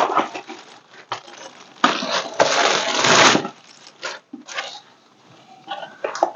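Plastic packaging being torn off and crinkled, in irregular rustling bursts, the longest and loudest lasting about a second and a half near the middle.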